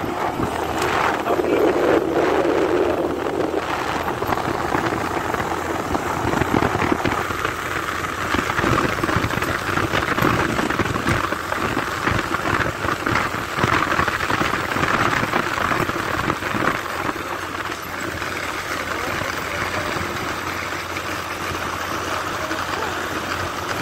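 Vehicle travelling fast on a paved road: a steady, loud mix of engine, tyre and wind noise.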